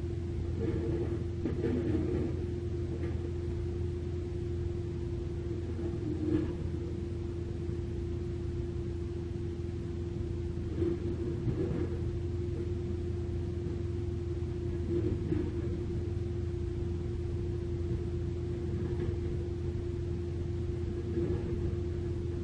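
Diesel engines of a SANY mini excavator and a dump truck running steadily, a low rumble with a constant hum. A few brief clatters of dirt and rock come as the excavator bucket digs and dumps.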